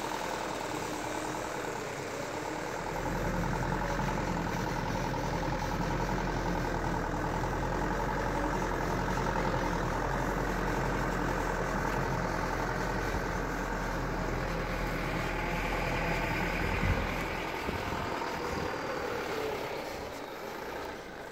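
Heavy truck's engine running at low revs as the truck creeps along a dirt track and passes close by. The engine gets louder about three seconds in, and there is a single sharp knock near the end.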